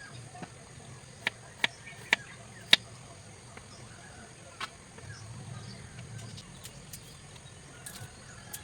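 A handful of sharp clicks, about five, spaced unevenly through the first half, over a faint low background murmur.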